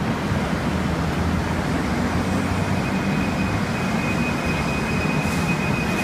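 RapidKL light-rail train pulling away from the platform: a steady rumble and low hum, with a high, even electric whine from its drive joining about two and a half seconds in.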